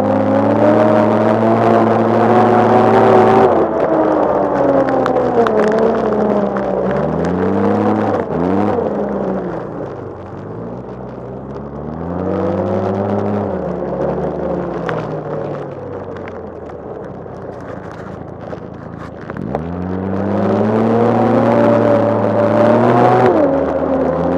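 2012 Arctic Cat F1100 Turbo snowmobile's turbocharged four-stroke three-cylinder engine under way, its pitch rising and falling with the throttle. It climbs at first, eases off about eight seconds in, rises again, runs lower for a while, then revs up sharply near the end. Scattered ticks of snow spray sound over the top.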